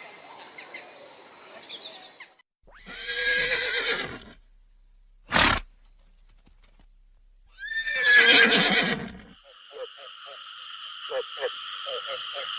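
Horse whinnying twice: a shorter call, then a louder, longer whinny that opens on a high wavering note, with a sharp click between them. Near the end a steady chorus of frogs begins calling.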